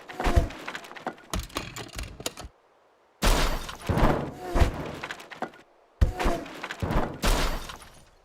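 A series of crashing, smashing impacts with breaking and clattering, in three bursts broken by two abrupt silences.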